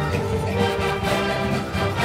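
Brass band of sousaphones, tubas, saxophones and trumpets playing a tune together, with a full low brass bass line under sustained chords.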